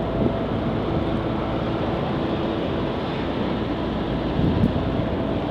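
Steady road traffic noise, with vehicles passing.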